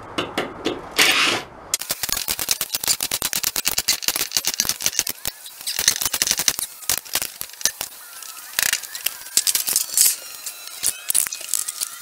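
Cordless driver sinking screws through a ceiling panel into the bus's metal roof ribs: a rapid rattling clatter in spurts, with short high squeaks in the second half.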